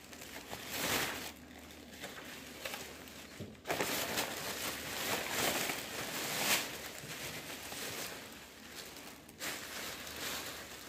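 Thin plastic shopping bags rustling and crinkling in irregular bursts as items are handled and packed into them.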